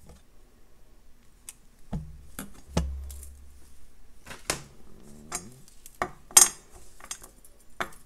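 Scattered light metallic clicks and clinks: jewellery pliers closing a small jump ring, and metal leaf charms, chain and beads knocking together as the necklace is handled and laid down. There is a soft low thud just under three seconds in, and the sharpest click comes about six and a half seconds in.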